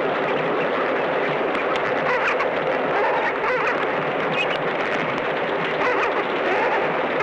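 A large flock of flamingos in a steady, dense din of many overlapping honking calls, with the noise of wingbeats and water as the birds take off from shallow water.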